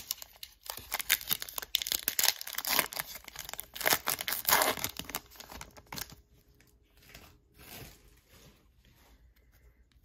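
Trading card pack wrapper being torn open and crinkled by hand. Dense crackling for about the first five and a half seconds, then only a few faint rustles.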